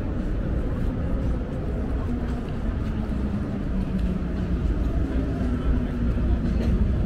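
Steady low rumble of a busy city riverside, with faint voices of people nearby.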